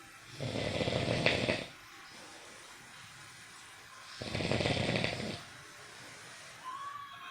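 Snoring: two long snores, each a little over a second, about four seconds apart.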